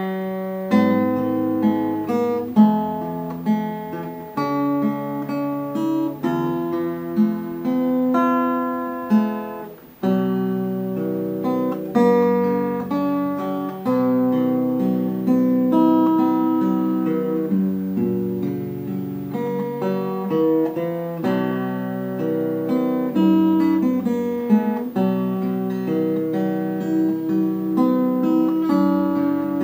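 Background music: acoustic guitar playing plucked and strummed notes, dropping away briefly about ten seconds in before starting again.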